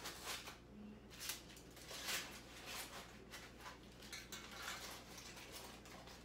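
Aluminium-foil fish packets crinkling and rustling as they are handled and set into a black roasting pan, in irregular short bursts.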